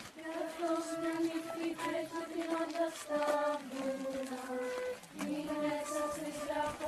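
Schoolchildren singing a slow melody in unison, each note held for about half a second to a second before stepping to the next.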